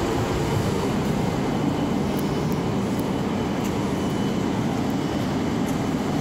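Shinkansen train at a station platform: a steady low hum and rumble that holds an even level throughout.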